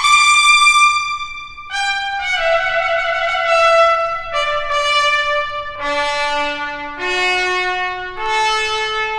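Trumpet playing a slow phrase of long, held notes. It steps down from a high note to a low one about six seconds in, then climbs back up note by note.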